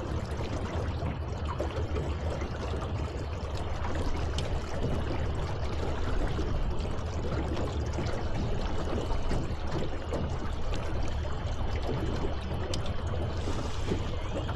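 Water rushing and splashing steadily along the hull of a small boat under way, over a constant low hum, with its motor turned all the way up.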